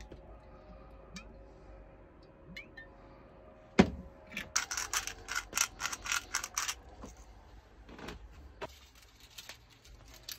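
A sharp knock a little under four seconds in, then a hand pepper grinder being twisted over the pot, grinding peppercorns in quick crunching strokes for about two seconds, followed by a few scattered clicks.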